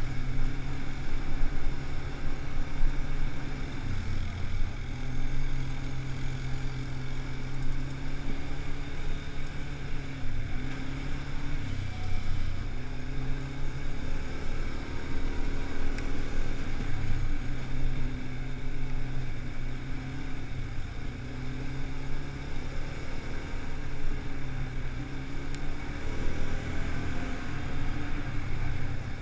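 ATV (quad bike) engine running under way at a steady low trail speed, its pitch dipping and picking up again a few times (about 4, 12, 17 and 26 seconds in) as the throttle eases off and opens.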